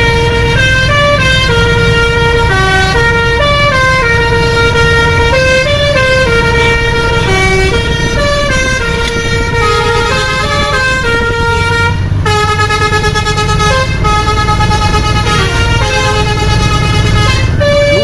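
Bus telolet horn (Basuri V3 multi-tone air horn) playing a continuous melody of held notes that step up and down several times a second, over a steady low engine rumble.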